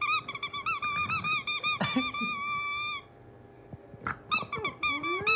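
Squeaky dog toy being chewed by a pug: a rapid run of high squeaks for about three seconds, a pause, then another quick run near the end.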